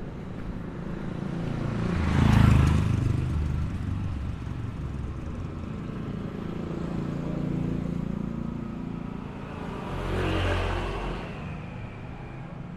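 Motor traffic on a city street: two vehicles pass close by, one about two seconds in and another about ten seconds in, each swelling and then fading, with engine noise running steadily between them.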